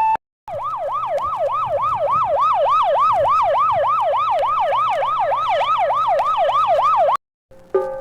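Electronic yelp siren of the modern emergency-vehicle kind: a tone that sweeps quickly up and drops back, about three times a second, then stops abruptly. It follows the last note of an older two-tone hi-lo siren just at the start.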